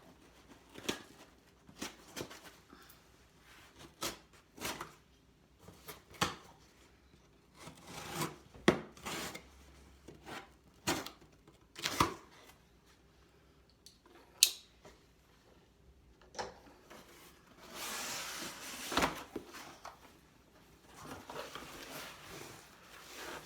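A delivered package being handled and opened: scattered taps, clicks and knocks, with longer stretches of rustling and scraping near the end.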